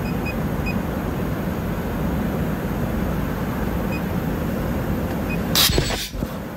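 Steady running noise of an automatic elastic-sewing machine, with a few short electronic beeps as its touchscreen is pressed. About five and a half seconds in, a short sharp burst of air comes from the machine's pneumatic cylinders as the sewing cycle starts.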